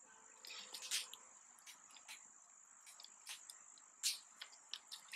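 Faint crinkling and scattered clicks of a plastic powder pouch being handled and opened with latex-gloved hands, the sharpest clicks about a second in and about four seconds in.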